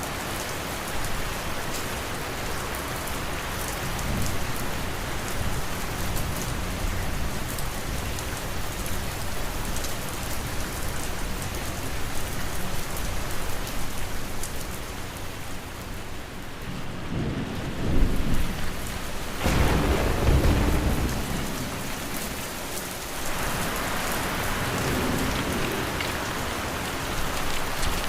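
Steady rain with rolling thunder. The deepest, loudest rumble comes a little past halfway through, with lighter rumbles earlier on.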